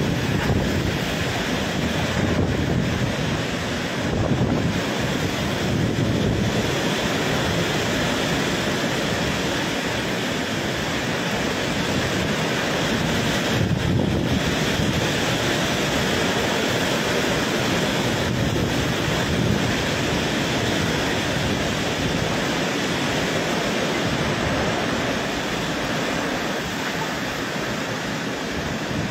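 Howling super typhoon winds and torrential rain, a loud steady noise, with wind buffeting the microphone.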